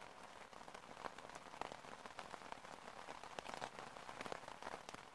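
Faint rain falling: an even hiss with many scattered drop taps.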